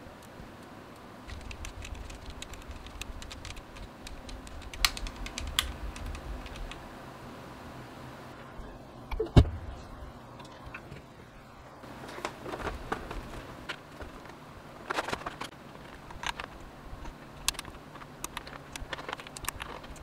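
Translucent Holy Panda tactile switches on a Rama Works M65-B keyboard clicking in an irregular run as they are pressed, then keycaps clicking as they are pushed down onto the switches. One heavier thump about nine seconds in.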